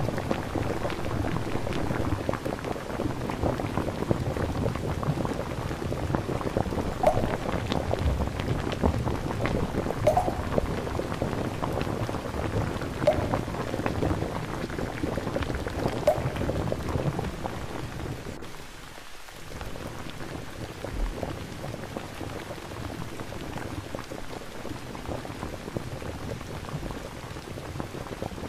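Steady rain falling, an even patter of rain ambience, which dips briefly about two thirds of the way through.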